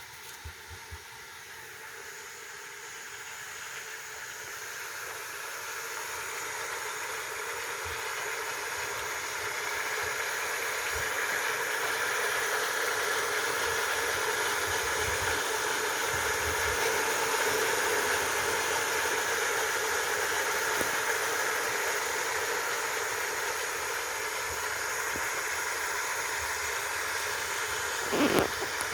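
Steady hiss of food cooking on the stove, building up over the first ten seconds and then holding even, with a short louder noise near the end.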